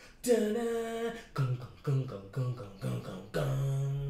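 A man vocalizing a short tune with his voice: a long held note, a quick string of short notes, then another long held note.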